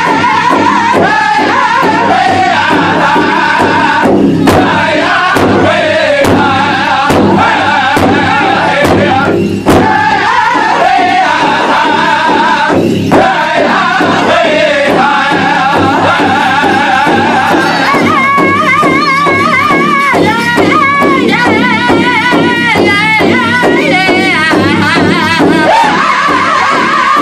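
Pow wow drum group singing an intertribal song over steady unison beats on a large powwow drum, several singers striking it together with drumsticks. The voices waver and rise into a higher stretch of the song about two-thirds of the way through.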